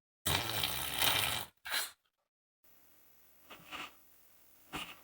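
Fart sound effects, spliced together. First comes a rough, raspy burst of about a second, with a short one right after it. Then, after a cut to dead silence, there are two faint short puffs near the end.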